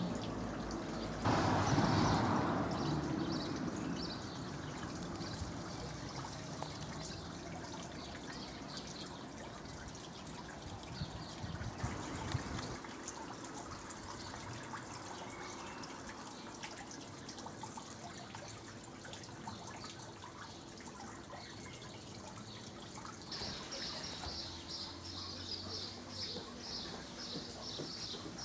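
Outdoor ambience of steady trickling water, with a louder rushing swell in the first few seconds. Near the end, birds start chirping rapidly.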